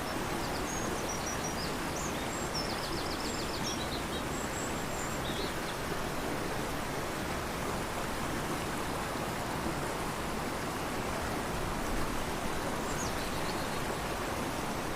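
Fast-flowing river rushing steadily, with a small bird giving short high chirps and trills in the first few seconds and again near the end.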